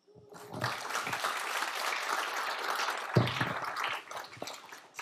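Audience applauding, building up in the first second and fading away near the end, with a single low thump about three seconds in.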